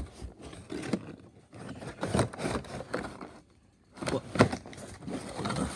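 Toy packaging being handled and pulled open: plastic wrapping crinkling and a cardboard box rustling, with a few knocks, in several short spells.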